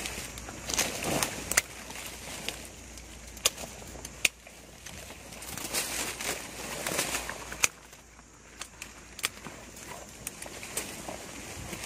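Rustling of a plastic tarpaulin protective suit against leaves and twigs, broken by several sharp clicks of pruning shears snipping branches.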